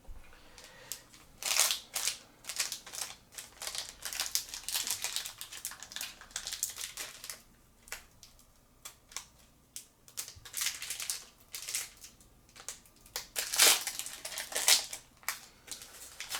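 The wrapper of a 10-card trading card booster pack crinkling and rustling as it is handled and opened by hand. The sound comes in irregular bursts, loudest about a second and a half in and again near the end.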